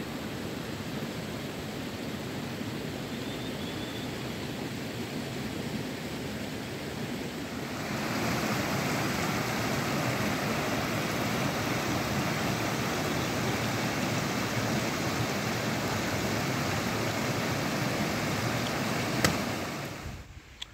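Steady outdoor rushing noise that gets louder and brighter about eight seconds in, with a single sharp click near the end.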